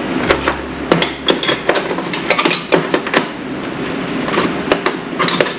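Steel sockets and hand tools clinking and clattering against each other in a run of irregular sharp knocks, a few of them briefly ringing, as sockets are tried for size on a nut.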